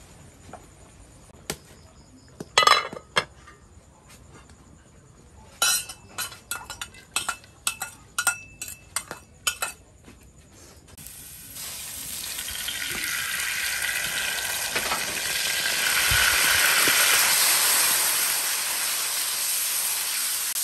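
A few sharp metallic clinks and taps of utensils on a steel wok, then about halfway through a steady sizzle of garlic and sliced meat frying in hot oil in the wok as it is stirred with a ladle. The sizzle builds to its loudest near the end.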